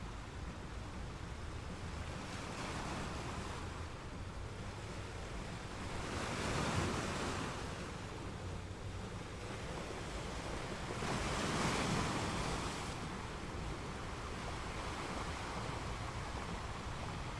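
Gentle ocean waves washing onto a sand beach: a steady surf hiss over a low rumble, with two waves swelling and breaking louder, a few seconds apart.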